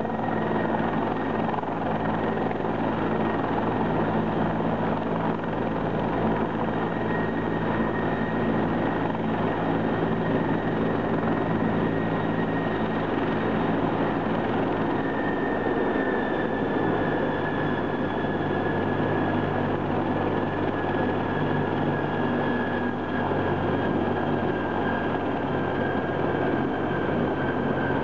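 Bell 412 helicopter running on the ground with its rotors turning: steady rotor and turbine noise from its Pratt & Whitney PT6T twin turboshaft engines. A high turbine whine drops slightly in pitch about halfway through.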